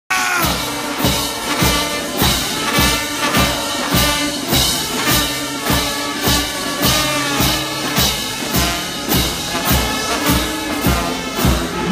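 Carnival brass band playing: trumpets, trombones, saxophones and sousaphone over a steady bass drum beat of about two strokes a second.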